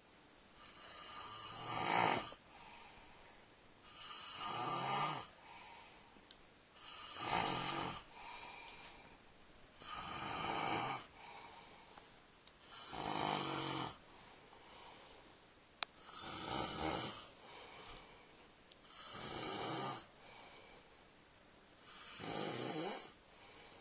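A man snoring loudly in his sleep: eight long snores, each about a second, coming about every three seconds with quiet breathing between.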